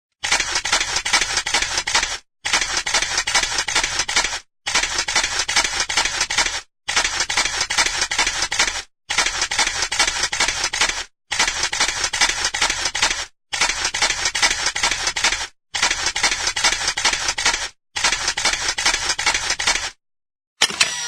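Camera shutter firing over and over in quick succession, in nine runs of about two seconds each with short pauses between them.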